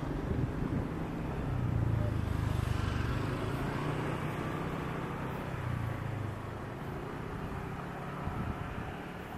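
Distant rumble of the Bombardier Global 7500's twin GE Passport turbofans at takeoff power, swelling about a second and a half in and easing off after about six seconds.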